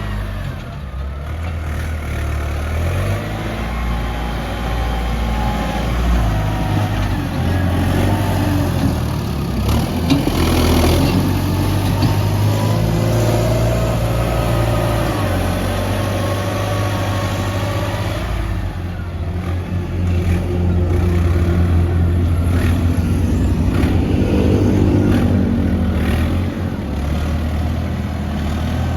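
Heavy diesel earthmoving machinery running, with the engine note rising and falling as it revs under load. It grows louder about ten seconds in and again after about twenty seconds.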